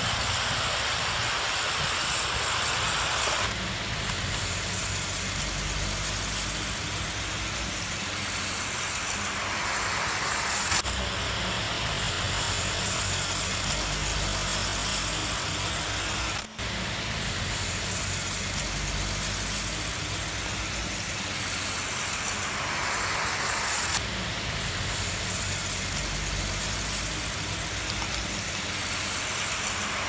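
Battery-powered motor of a homemade lawn mower spinning its cutting blade through grass: a steady whir that shifts in level now and then, with a brief break about halfway through.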